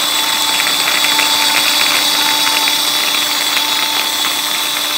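Mini electric food chopper running steadily, its blades chopping onion inside the small plastic bowl, with a constant motor whine.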